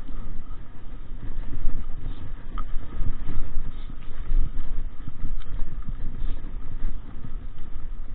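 Mountain bike rolling over a rough, rocky dirt trail, heard through a handlebar-mounted camera: an uneven low rumble with frequent small knocks and rattles as the tyres hit stones and ruts.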